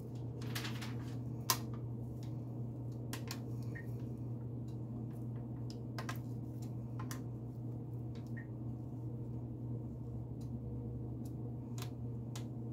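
Thick batter being scraped out of a bowl with a wooden spoon: soft squishy sounds with scattered light clicks and knocks of the spoon against the bowl, one sharper knock about a second and a half in. A low steady hum lies underneath.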